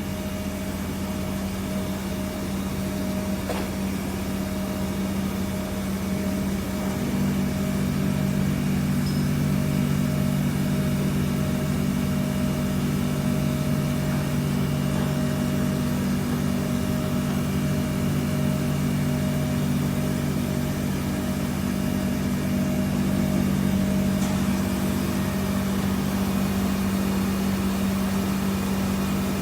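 CNC machine spindle running steadily while a custom carbide form drill drills and countersinks in a single tool. A second, lower hum joins about a quarter of the way in and drops out near the end.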